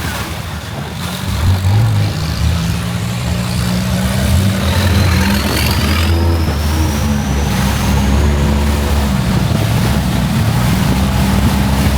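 Longtail boat's engine running, picking up about a second and a half in and then running on steadily, with a faint rising whine midway.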